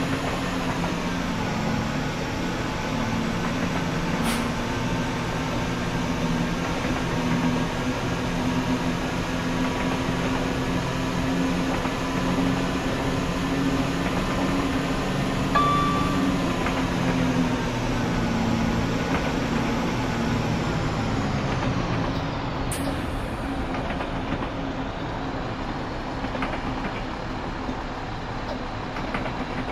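Class 172 Turbostar diesel multiple unit running on the rails: a steady diesel engine note with a higher whine above it, both falling in pitch about twenty seconds in. Two sharp clicks come through, one early and one a little after the pitch starts to drop.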